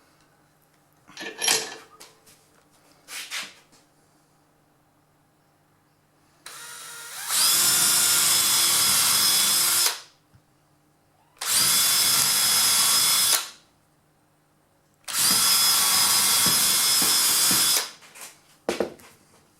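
Power drill boring holes through the two clamped halves of a clamp block, run in three bursts of a few seconds each with the motor starting and stopping abruptly. A couple of knocks from handling the work come before the drilling, and a few clicks near the end.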